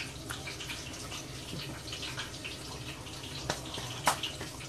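Coconut shrimp frying in hot oil, sizzling and crackling steadily, with two sharp clicks about three and a half and four seconds in.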